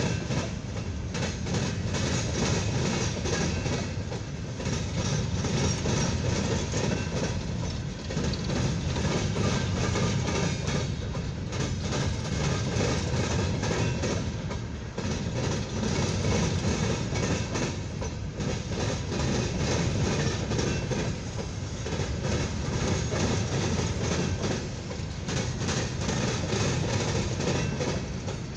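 Empty steel coal hopper cars rolling past close by, a steady rumble and rattle with wheels clacking on the rails. The loudness swells and eases every few seconds as car after car goes by.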